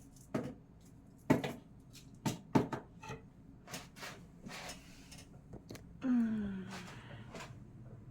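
Light knocks and clicks of small jars and bottles being set down and moved on a kitchen cabinet shelf, about eight in all, with a brief low falling sound about six seconds in.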